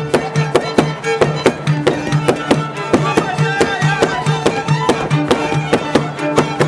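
Fiddle playing a fast Gyimes dance tune over a low steady drone, with a steady beat of sharp knocks, several a second.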